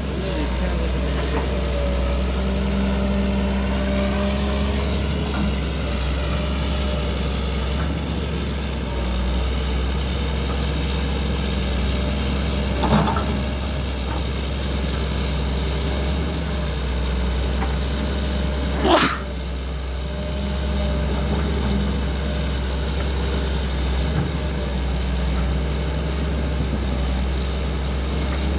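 Excavator's diesel engine running steadily with a deep, continuous drone, as the machine works on a road. Two brief sharp sounds break through, about halfway and again about two-thirds of the way in.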